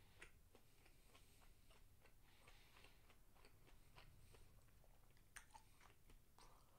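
Faint chewing and wet mouth sounds from a person eating with the mouth closed, with scattered soft clicks and one sharper click about five seconds in.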